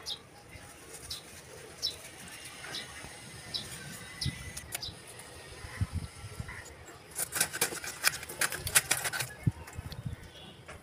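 Bhetki (barramundi) pieces scraped against the metal blade of a boti, scaling the fish. Single short rasping strokes come about once a second at first. From about seven to nine and a half seconds in there is a quick run of strokes, with a few dull knocks of the fish on the wooden base.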